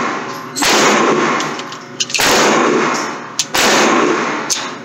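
Three gunshots about a second and a half apart, each ringing on with a long echo, with a few lighter sharp clicks in between.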